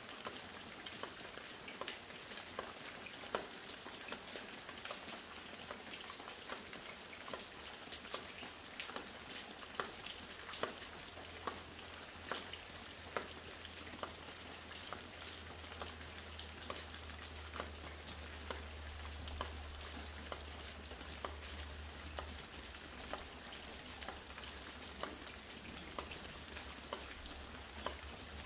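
Light rain falling steadily, a soft hiss dotted with many separate, irregular drop hits, including water dripping from a roof.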